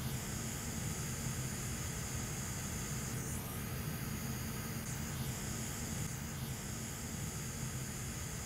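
Steady hiss of blowing air from a hot air rework station and a fume extractor fan, with a low hum underneath; the high part of the hiss drops out and comes back several times.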